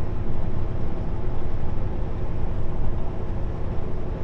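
Kenworth W900L semi truck driving at highway speed, heard from inside the cab: a steady low diesel engine drone mixed with road noise.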